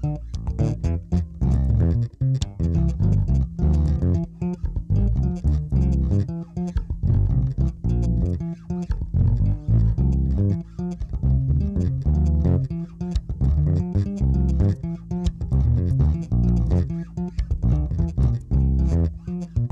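Four-string electric bass guitar being played: a busy line of quick plucked low notes.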